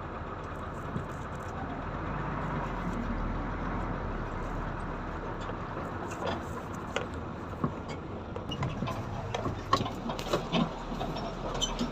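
Heavy diesel vehicle engine running steadily, with scattered knocks and rattles in the second half.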